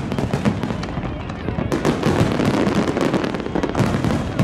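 Fireworks display going off in a dense, continuous barrage of overlapping bangs and crackles.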